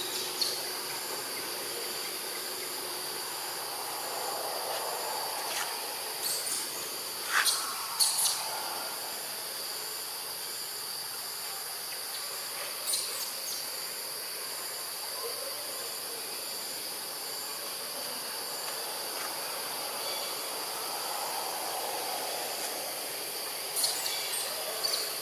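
Steady high-pitched chorus of insects in forest, with one insect call pulsing over it. A few brief sharp high sounds stand out now and then, loudest about seven to eight seconds in.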